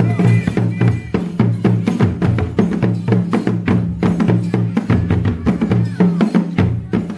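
Drums played in a fast, steady rhythm, many strokes a second, continuing without a break.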